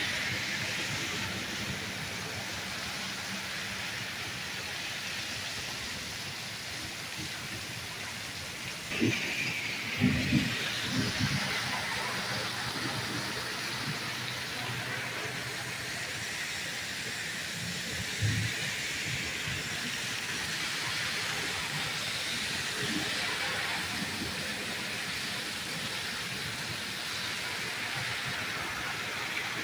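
Heavy torrential rain pouring steadily, a dense hiss of downpour. A few short, louder low thuds come about nine to eleven seconds in and once more around eighteen seconds.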